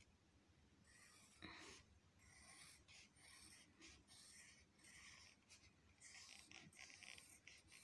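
Pencil drawing on paper: faint, short, irregular scratching strokes.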